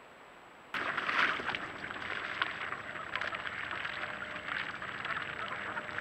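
Mexican ducks splashing and flapping their wings in shallow water, a dense spattering wash with many small crackling splashes that starts suddenly about a second in.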